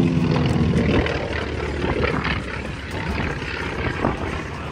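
Propeller aircraft engine running, a steady drone with a pitched hum that is strongest in the first second.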